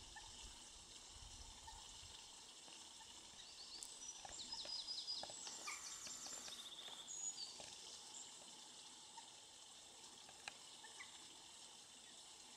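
A small bird's rapid song of high, quick notes ending in a fast trill, lasting about three seconds from a few seconds in, over a faint steady hiss of outdoor background.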